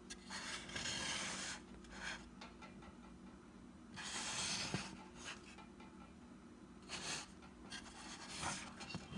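Rubbing and scraping as a car-audio horn tweeter is handled and its horn is twisted off the screw threads, in several short bursts, the longest about a second at the start and another around halfway.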